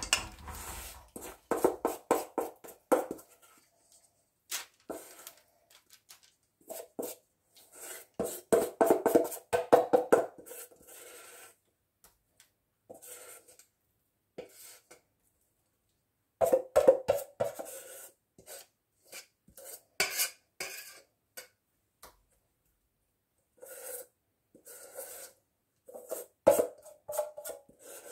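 A metal spoon scraping and knocking against a stainless steel mixing bowl as thick crispbread dough is scraped out. It comes in several quick clattering runs with the bowl ringing briefly, separated by quiet pauses.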